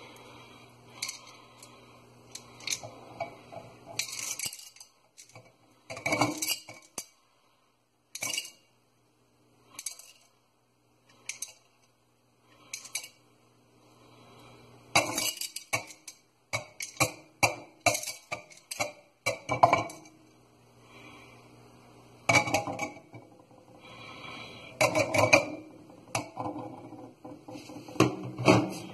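Small round candies rattling and clinking in clear tumblers, with the cups knocking against a stainless steel sink: scattered sharp clinks and clusters of rattles separated by short quiet gaps.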